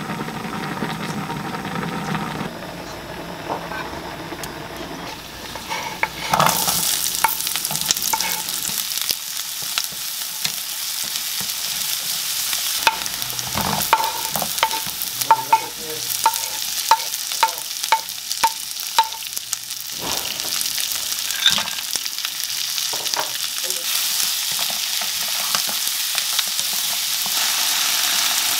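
Garlic and sliced onion sizzling in oil in a nonstick frying pan, the hiss starting suddenly about six seconds in after a quieter steady hum. A wooden spatula stirs and clicks lightly against the pan, with a quick run of even clicks midway.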